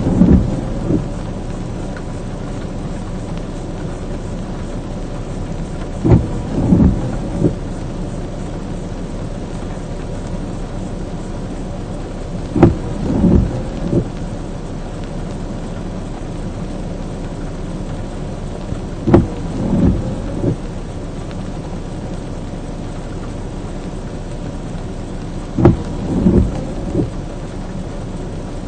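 Steady rain on a stopped vehicle, with the windshield wipers on an intermittent setting: a click and a double swish of the blades about every six and a half seconds, four times.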